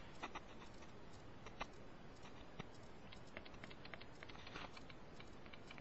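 Faint hiss with scattered small clicks and ticks, a few a second.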